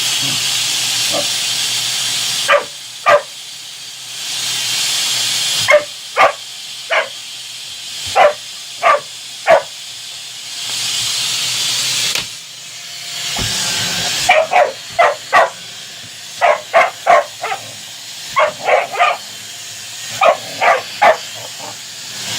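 Puppy barking in short, high-pitched yaps at a vacuum cleaner, in quick runs of two to four. The vacuum runs as a steady hiss in short spells, and the barks come mostly in the gaps when it stops.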